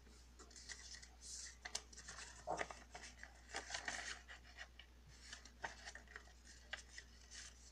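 A sheet of paper rustling and crinkling as it is folded and creased by hand, in faint scattered short rustles with small crisp clicks.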